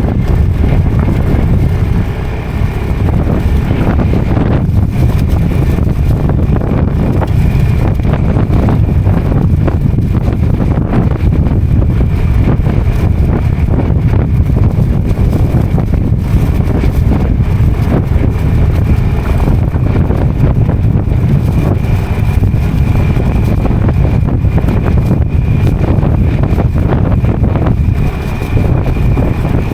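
Motorcycle running steadily along a road, with heavy wind noise on the microphone. The level dips briefly about two seconds in and again near the end.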